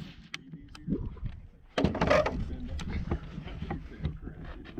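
Sharp clicks and a short clattering burst about two seconds in, in the pause between rifle shots: the rifle's action being worked and the gun being handled.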